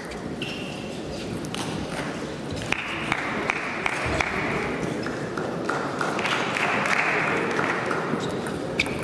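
Celluloid table tennis ball clicking now and then on the table and bats, irregular sharp ticks over the steady noise of a large sports hall.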